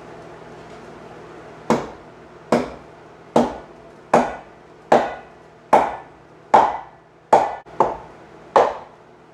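Hammer blows on metal in a steady rhythm, a little more than one a second, each strike ringing briefly. They start about two seconds in, about ten strikes in all, while the crawler's undercarriage frame is being knocked into alignment.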